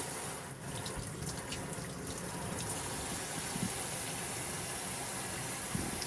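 Hot water running steadily out of a freshly descaled tankless water heater's line, with a few light ticks in the first couple of seconds.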